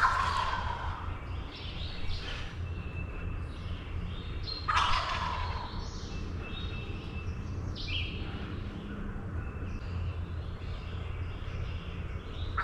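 Wild turkey gobbler gobbling twice: a sudden rattling call at the start and another about five seconds in, with songbirds chirping between.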